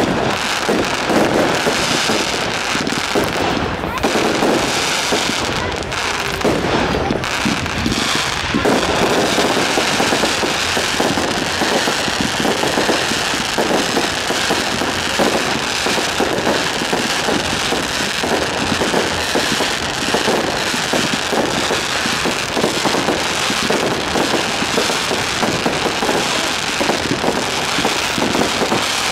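Fireworks display: a dense, unbroken barrage of bangs and crackles from aerial shells bursting overhead.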